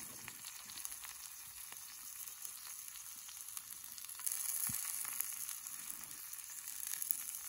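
Trout and sourdough bread sizzling in a hot cast iron skillet, a steady hiss that grows louder about four seconds in. A single light tap of the fork against the pan comes shortly after.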